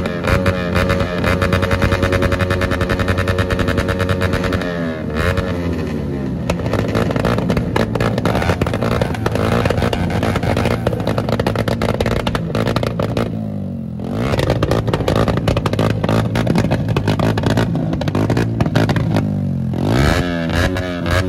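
Sport motorcycle engine through a short aftermarket exhaust, revved hard and held at high revs, then dropping back three times: about five seconds in, around thirteen seconds in with a brief lull, and near the end.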